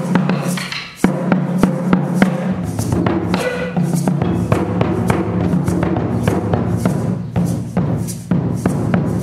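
Japanese taiko drums struck with bachi sticks in a continuous rhythmic pattern, sharp strokes over the drums' low ringing.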